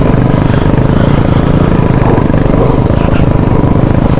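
Royal Enfield motorcycle engine pulling steadily up a steep off-road climb, loud and even throughout.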